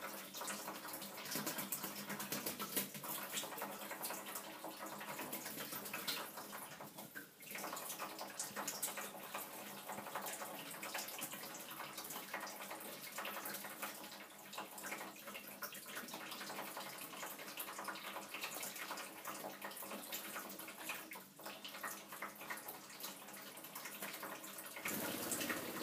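Kitchen tap running in a thin, steady stream, splashing onto a plastic tray and into a stainless steel sink.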